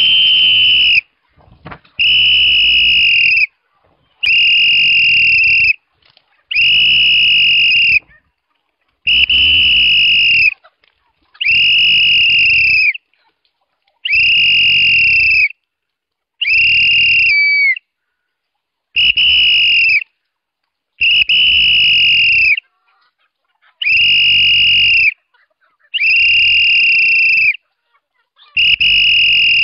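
Long, steady, high-pitched whistle blasts repeated at even spacing, about every two and a half seconds, each lasting over a second. There are about a dozen in all. One blast, about halfway through, bends down in pitch at its end.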